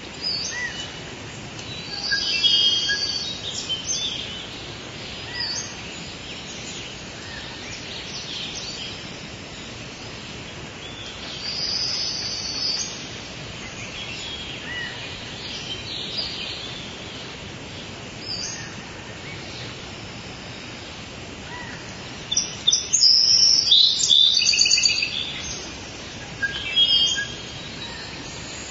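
Rainforest ambience recording: bird calls and chirps over a steady background hiss, with a dense, loud run of calls a little over three-quarters of the way through.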